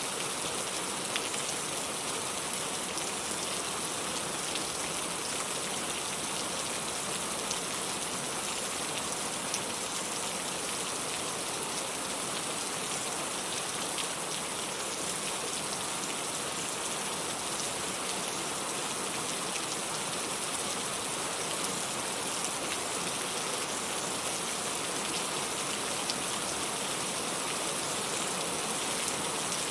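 Steady rain falling: an even, continuous hiss with occasional faint drop ticks.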